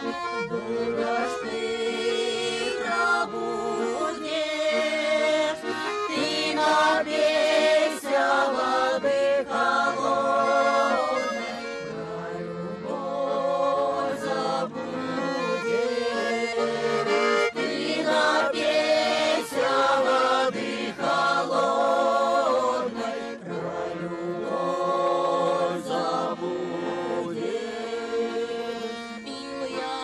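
Folk ensemble of women's and men's voices singing a song together to the accompaniment of two bayans (button accordions).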